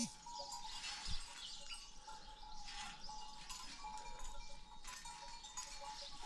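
Outdoor rural ambience of birds chirping, with a faint steady tone underneath. Two soft low knocks come at the start and about a second in.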